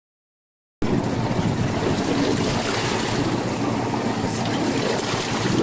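Steady wind and sea noise aboard a ski boat at sea, starting abruptly about a second in.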